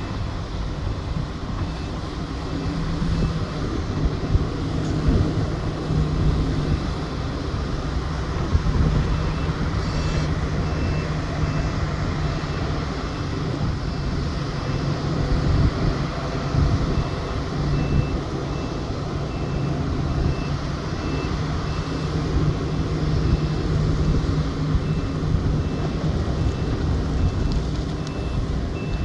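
Large mining excavator and Komatsu HD785 haul truck diesel engines running, a loud steady drone. About nine seconds in, a reversing alarm starts beeping, about two beeps a second.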